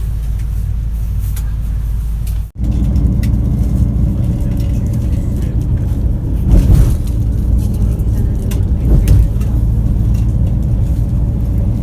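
Steady engine drone and road rumble of a moving road vehicle, heard from inside it. The noise drops out briefly about two and a half seconds in, and there are two louder rumbling swells later on.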